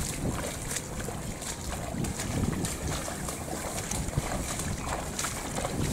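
Footsteps splashing and sloshing through shallow water and mud in a flooded rice paddy, irregular and ongoing, with a steady low rumble of wind on the microphone.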